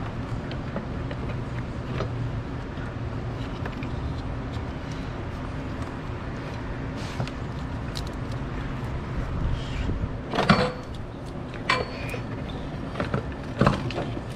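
An alternator being worked loose and lifted out of its mount in a tight engine bay: handling clunks and rattles, with a few sharper metal knocks near the end, over a steady low hum.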